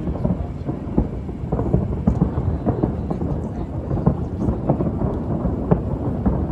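Fireworks going off, a continuous low rumble of booms with many sharp cracks and pops at irregular intervals, like a finale barrage.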